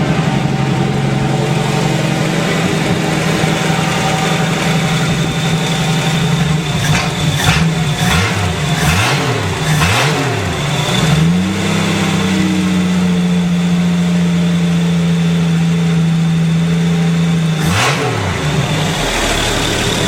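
AMC 258 4.2-litre inline-six running on its first start in months. It holds a fast idle, is blipped three times in quick succession about a third of the way in, and is held at a higher steady speed. Near the end it is blipped once more and drops to a low idle.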